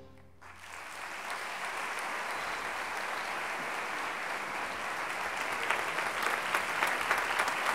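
Concert audience applauding, starting about half a second in just after the wind band's final brass chord cuts off. The clapping swells and grows louder toward the end.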